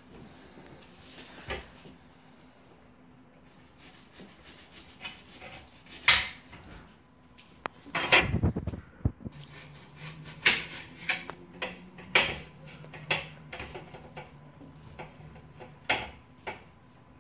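Kitchen clatter: a knife clicking against a plate as an onion is cut, among scattered clinks and knocks of dishes, with a louder clatter about eight seconds in.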